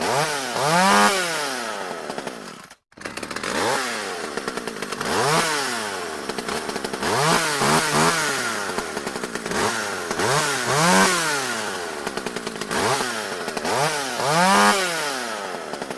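Chainsaw engine revving up and dropping back again and again as the throttle is blipped, with a sudden brief cut to silence about three seconds in.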